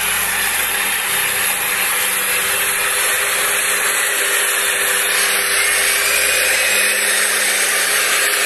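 LiuGong motor grader's diesel engine running steadily while the grader blades loose dirt. It is a loud, even, hissing drone with a few faint steady tones under it.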